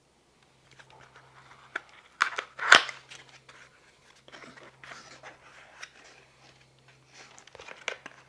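A small cardboard product box being handled and opened: scattered rustles, scrapes and clicks, with a sharp click about two and a half seconds in.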